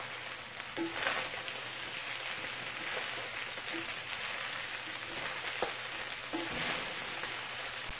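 Chicken and chopped cabbage frying in hot oil in a large pot, a steady sizzling hiss as it is tossed with a wooden spatula, with a few light knocks of the spatula.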